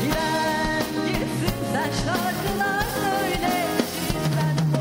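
A woman singing a pop song into a microphone, backed by a live band of drums, bass, electric guitar and keyboards playing a steady beat.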